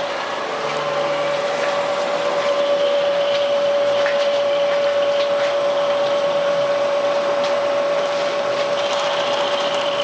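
Milling machine cutting the slide of a pattern maker's vise: a steady running whine with one constant tone, with scattered light ticks from the cut, getting a little louder about a second in.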